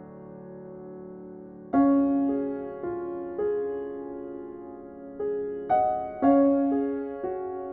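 Slow, gentle background piano music: a soft held chord, then from about two seconds in a series of struck notes and chords, each left to fade.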